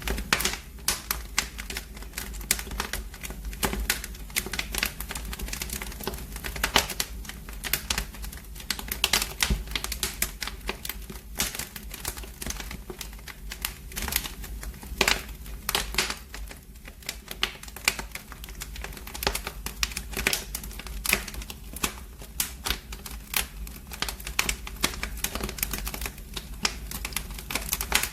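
Wood fire burning in a fireplace, crackling with dense, irregular snaps and pops over a low, steady rumble.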